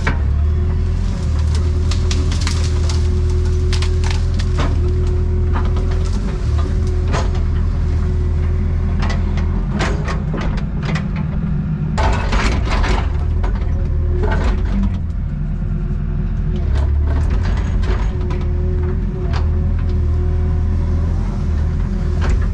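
Excavator engine running steadily under load, with repeated cracks and crunches of branches and wood breaking, thickest about ten to thirteen seconds in.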